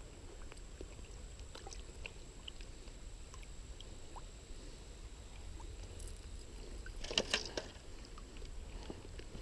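Faint outdoor ambience: a steady low wind rumble on the microphone with scattered light clicks, and a brief noisy rustle about seven seconds in that is the loudest moment.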